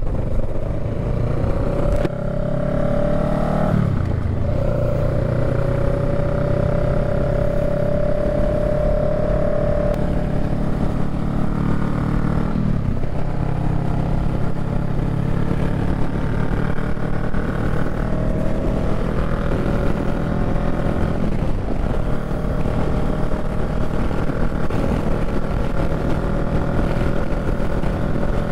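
Honda Rebel 500's parallel-twin engine pulling hard under acceleration up to highway speed. Its note climbs slowly and drops sharply at each of three upshifts, over steady wind and road noise.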